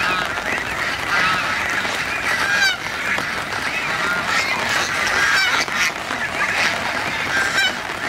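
A flock of domestic geese honking continuously, many calls overlapping one another.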